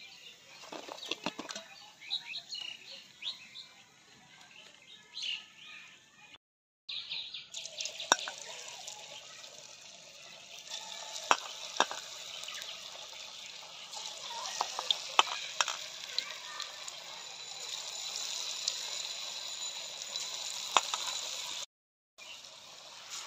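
Potato pakoras deep-frying in hot oil in a wok: a steady sizzle with sharp crackling pops, starting about seven seconds in.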